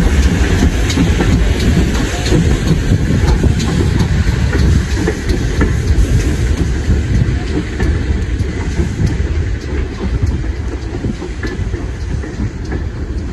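Steam locomotive running tender-first away along the track: a low rumble of wheels on rail with scattered clicks, slowly growing quieter as it draws off.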